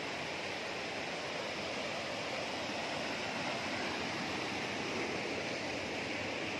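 Steady rush of fast stream water pouring over a rock ledge and down a rocky channel at the lip of a waterfall.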